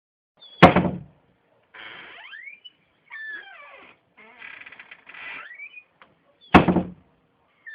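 A door slammed shut twice, two loud bangs about six seconds apart, with quieter squeaking and creaking of the door swinging between the slams.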